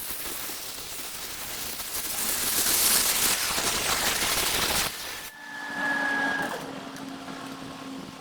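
Metalworking shop machinery: a loud, steady hiss for about five seconds that cuts off abruptly, followed by a short, slightly falling whine and a steady motor hum.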